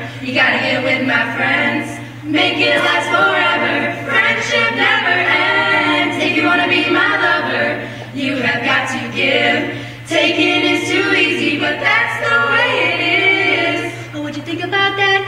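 A group of five young female voices singing together a cappella, in phrases broken by brief pauses every couple of seconds.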